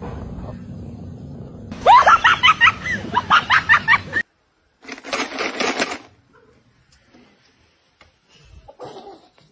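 Tabby kitten mewing in a rapid run of short, high, rising-and-falling cries, about four a second, over a low steady background. After a cut there is a brief noisy burst.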